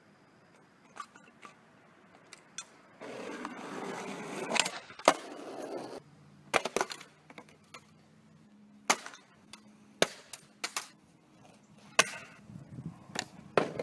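Skateboard wheels rolling on asphalt for about three seconds, ending in a loud sharp crack as the board hits. Then come a string of separate sharp clacks of the board and its parts knocking on the pavement.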